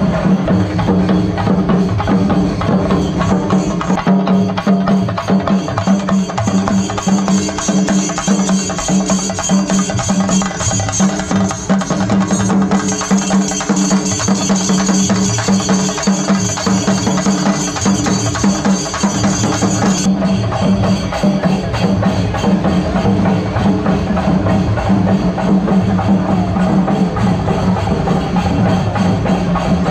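Chenda drums of a Kerala temple procession ensemble played with sticks in a dense, driving rhythm, over a steady held tone. The high clatter drops away about two-thirds of the way through.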